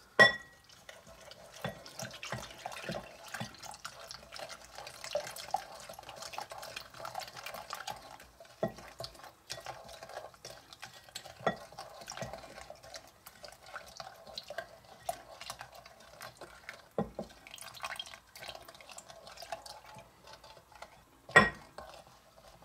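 Milk pouring into a glass bowl of instant pudding mix while a wooden spoon stirs it, with many small scrapes and taps of the spoon against the glass. A louder knock comes just after the start and another near the end.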